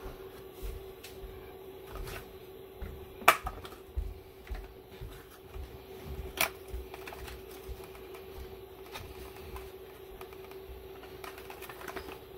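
Scattered clicks, taps and knocks as the plastic UV lamp socket and fixture are handled against the sheet-metal duct, with two sharp clicks about three and six seconds in, over a steady hum.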